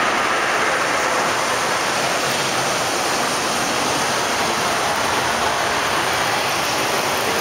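Artificial indoor rain falling steadily onto a shallow pool and rock surfaces: a dense, even hiss of water that holds the same level throughout.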